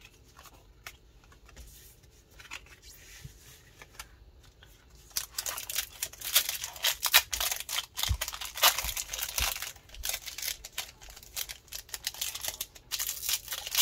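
Crinkling and tearing of a Pokémon card booster pack's foil wrapper as it is opened. A few faint clicks come first, then about eight seconds of dense crackling starting about five seconds in.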